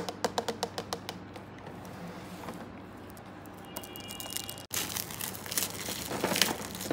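A quick run of light plastic clicks, about five or six a second, as fingers run across Copic Classic markers in their clear plastic case, fading out after a second and a half. About two-thirds of the way in comes a dense stretch of plastic crinkling and rattling as the set is handled.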